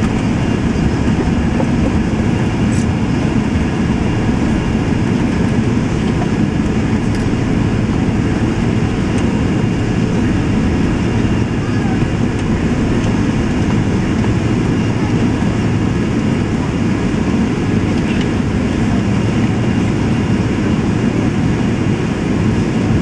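Steady, loud cabin noise inside an Airbus A380-861 on the ground, from a seat just behind the wing: a low rumble from its Engine Alliance GP7200 engines and air systems, holding level with no rise in thrust.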